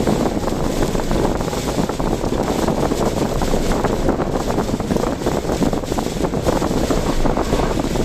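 Steady, loud rush of storm wind buffeting the microphone, mixed with a constant wet road-noise haze.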